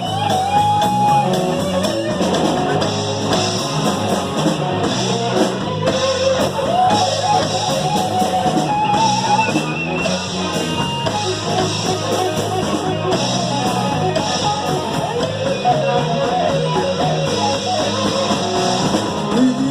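Rock music with a melodic lead line over a steady beat, a cowbell played along with it.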